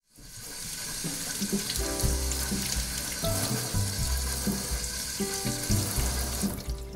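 Running water, a steady hiss that stops shortly before the end, over background music with a bass line.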